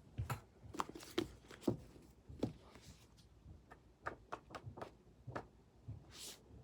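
Irregular light taps and clicks of small objects being handled, with a brief soft rustle near the end.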